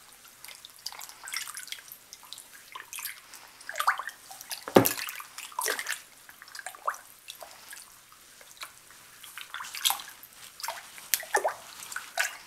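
Water splashing and dripping as a shirt is stirred and swished through a plastic tub of dye bath by gloved hands and a spoon: irregular small splashes and gurgling plops, the loudest plop about five seconds in.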